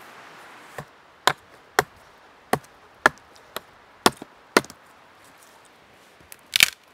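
Hatchet chopping a stick of green wood: about eight sharp strokes, roughly two a second, then a pause and one louder, longer strike near the end.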